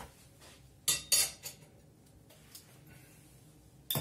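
A metal utensil clinking: two sharp clinks about a second in, a fainter one just after, and another sharp clink near the end.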